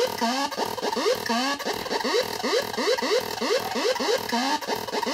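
Olegtron 4060 noise box, a CD4060 CMOS oscillator and divider circuit, putting out a harsh, noisy electronic tone broken into rapid upward chirps, about four a second.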